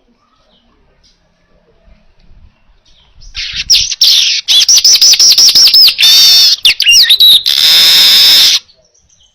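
Manyar (weaver bird) singing loudly. After about three quiet seconds comes a rapid run of high, downward-sweeping notes, then a harsh buzzing trill that cuts off suddenly near the end.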